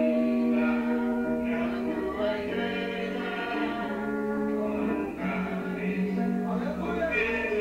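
Church worship music with singing over long, held chords.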